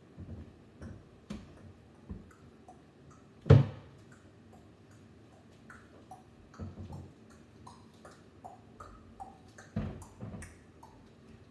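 Scattered knocks and bumps from a child climbing about on a kitchen counter and at an upper cabinet, with small ticks between. One loud sharp bang comes about three and a half seconds in, and another heavy bump comes near the end as she sits down on the counter.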